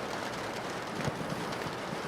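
Steady rain pattering on a window pane, with one sharper drop tap about a second in.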